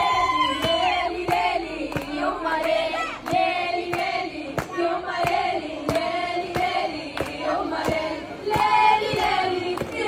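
A woman singing a pop song live through a microphone, with a crowd singing along and clapping in time, about two claps a second.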